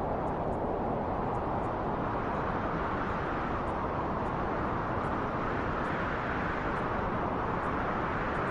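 Wind recording: a steady rushing of wind that swells and eases slowly.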